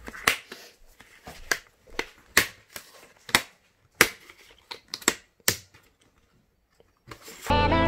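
Plastic snap clips of an Acer laptop's screen bezel clicking as a plastic card pries the bezel free around its edge: a run of sharp separate clicks, about two a second, for about six seconds. Music starts near the end.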